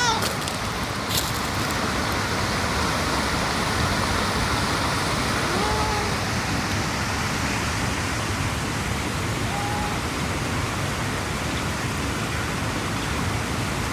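Steady, even rushing noise throughout, with a cat's meow ending right at the start and two faint short calls about six and ten seconds in.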